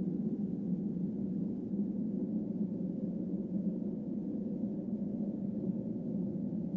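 Steady low drone with a faint held tone running through it, with no distinct knocks or other events.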